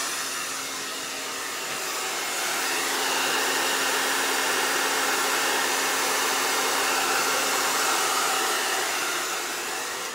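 Hand-held hair dryer running, a steady rush of air with a low hum, blowing across wet acrylic paint to spread the cells. It is slightly quieter about a second in, then steady.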